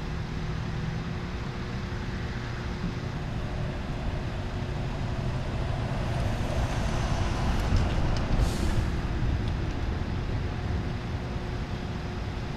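Heavy diesel truck engines idling, a steady low rumble with a constant hum, swelling slightly partway through. A short hiss of air and a few clicks sound about eight seconds in.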